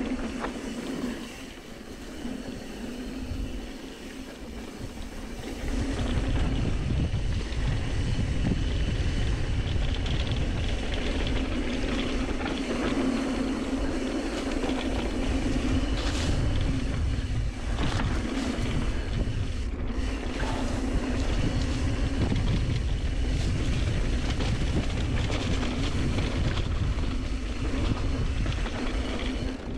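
Wind buffeting the chest-mounted camera's microphone and tyres rumbling over dirt singletrack as an e-mountain bike descends, with a steady hum underneath. It gets louder about six seconds in and stays loud.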